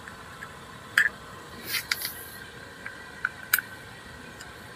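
Plastic lug-nut covers being pushed by hand onto the wheel nuts of an alloy wheel: a few light clicks and a brief scrape as the caps seat, the sharpest click about three and a half seconds in.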